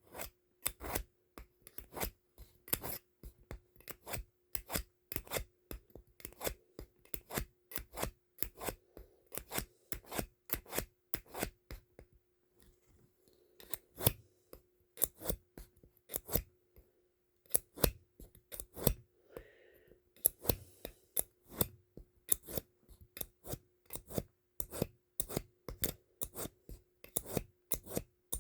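A 420 stainless steel scout knife blade drawn again and again through a handheld knife sharpener, in short scraping strokes about two a second, with a couple of brief pauses.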